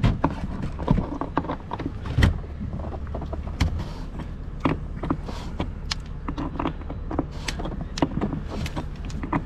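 Irregular sharp metallic clicks and clinks of a deck-fill key opening a boat's fuel filler cap, over a steady low hum.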